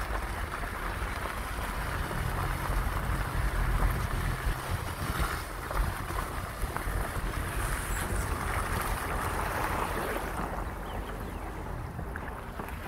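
A vehicle rolling along a rough road: a steady engine and road rumble, with wind buffeting the microphone. The rumble swells for a couple of seconds near the start.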